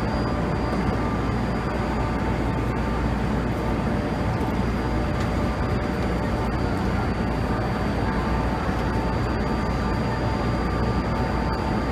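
Metro train standing at an underground platform with its doors open: a steady hum and rumble of its running equipment, with a thin high-pitched whine held on one note.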